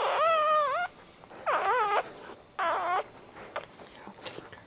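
Newborn dachshund puppy crying: three high, wavering squeals, each under a second long, while its mother licks it. A few faint short clicks follow the last cry.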